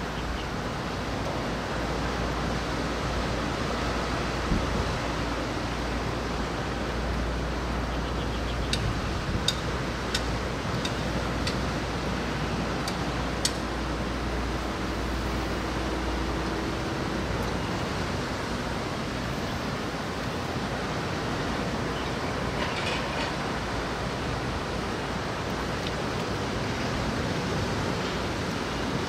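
Steady wind and rain noise, with a low rumble underneath that stops a bit past halfway. A few sharp ticks come about a third of the way in.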